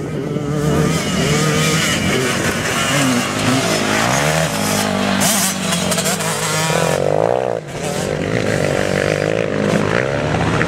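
Quad bike engines revving, their pitch rising and falling as the riders accelerate and ease off, with a sharp climb in revs about seven seconds in.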